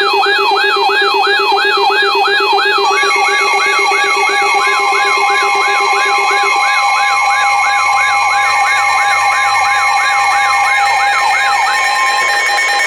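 Electronic emergency alert tones layered together: a siren-like sweep rising and falling about three times a second, over several steady alert tones. A low tone drops out about halfway through, and the sweep and tones cut off near the end.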